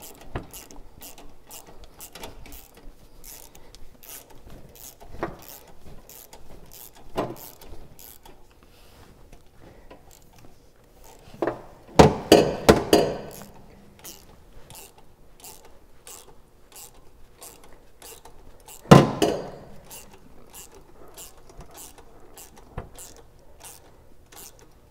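Hand socket ratchet clicking in a steady run of quick strokes while a nut on the turbo outlet-to-downpipe clamp is tightened. Twice, about halfway through and again a few seconds later, a louder clatter of knocks.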